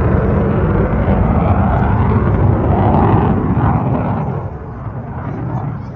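F-22 Raptor's twin Pratt & Whitney F119 turbofans, a loud jet roar from a low pass, with a rising and falling tone that peaks about three seconds in and fades away over the last two seconds.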